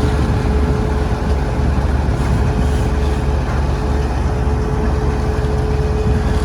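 Heavy diesel farm machinery running steadily under load, a constant low engine rumble with a steady high hum over it.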